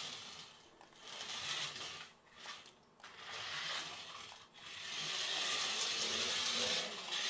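Battery-powered Adventure Force mini RC truck's small electric motor and gearbox whirring as it drives on a wooden floor, cutting out briefly a few times, then running steadily from about five seconds in.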